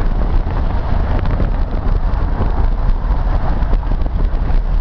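Steady low rumble and rushing noise of wind buffeting the camera microphone.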